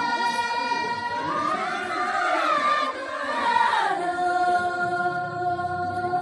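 A group of voices singing a slow Tibetan dance song together, with long held notes; about four seconds in the melody steps down to a lower held note.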